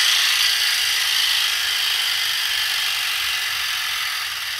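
Wind-up chattering teeth toy running in the hand, its clockwork giving a steady whirring clatter that gradually gets quieter as the spring runs down.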